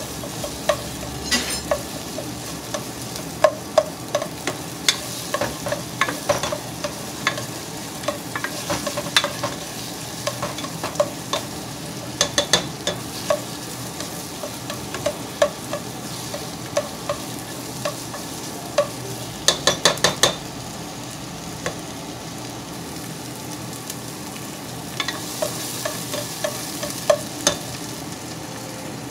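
Sliced onions sizzling in oil in a nonstick pot, stirred with a utensil that scrapes and clicks against the pot. About twenty seconds in there is a quick run of several clicks.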